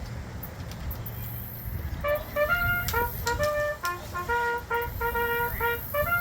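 A low rumble, then about two seconds in trumpet music begins, a melody of held notes.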